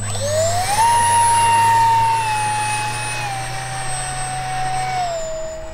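A 50mm electric ducted fan on a 4S battery spools up to full throttle for the hand launch of a model jet, its whine rising in pitch over the first second. It then holds a high steady whine that steps down slightly a few times as the model climbs away.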